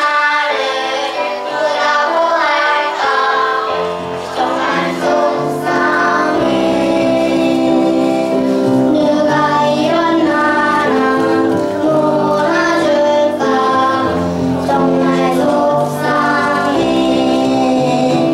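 A young child singing a song into a microphone over an instrumental backing track; a bass line comes in about four seconds in.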